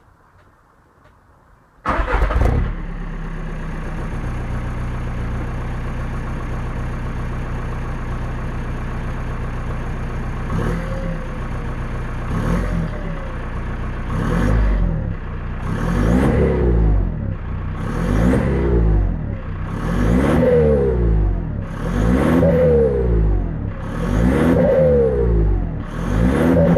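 Seat Ibiza Cupra TDI's four-cylinder turbodiesel with a Milltek exhaust, started about two seconds in and left idling steadily. From about ten seconds in it is revved in short blips roughly every two seconds, each rising and falling in pitch, getting louder as it goes.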